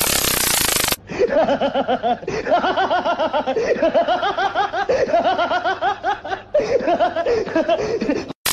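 A second of loud hissing noise, then a long run of quick, high-pitched laughter, about six "ha" pulses a second, breaking off briefly twice.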